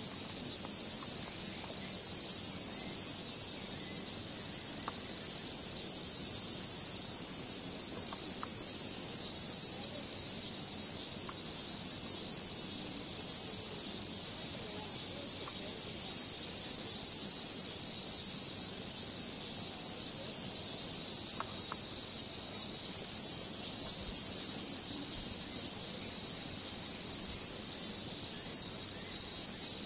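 Cicada chorus: a steady, high-pitched drone at an even level.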